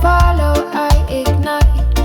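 Reggae music: an instrumental passage with a heavy, deep bass line, pitched melody instruments and regular drum hits.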